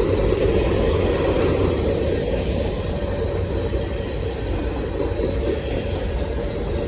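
Freight cars of a passing train, an old hopper among them, rolling by: steel wheels on the rails make a steady, even low noise.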